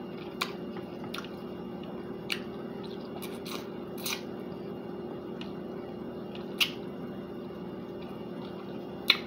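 A person biting and chewing a sauce-covered chicken wing, with scattered short wet mouth clicks and smacks, the loudest about two-thirds of the way through and just before the end, over a low steady hum.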